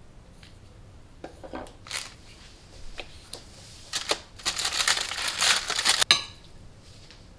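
Thin plastic bag crinkling and rustling as it is handled, with scattered light rustles at first and a dense burst of crinkling for about a second and a half near the end, cut off by one sharp click.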